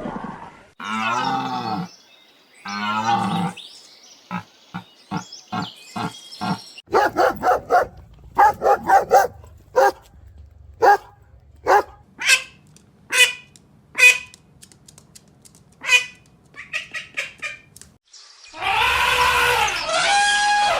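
A sequence of different farm animal calls: two short pitched calls in the first few seconds, then a run of short quick sounds and a series of sharp separate calls, and a long pitched call near the end.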